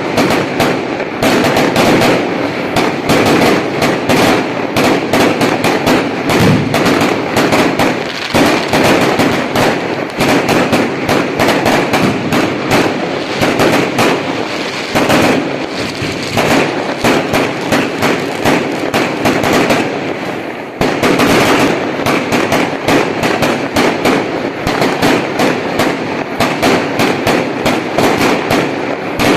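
Dense, continuous crackling: many sharp pops a second running on without a break, with a brief dip about 21 seconds in.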